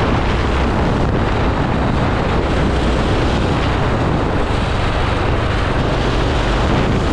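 Go-kart engine running, with wind buffeting the microphone, making a loud, steady noise.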